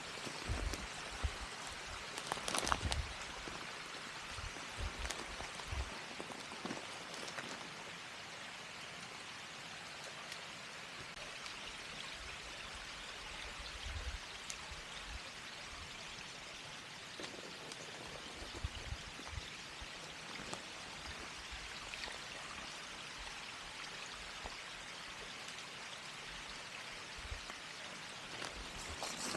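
A steady rush of water. There are a few soft thumps and knocks in the first several seconds.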